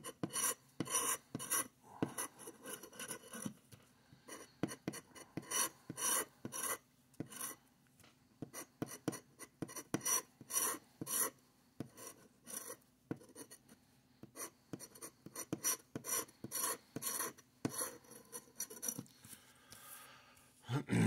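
A plastic scratcher tool scraping the coating off a scratch-off lottery ticket in many short, quick strokes with brief pauses, followed near the end by a softer brushing as the shavings are swept off the card.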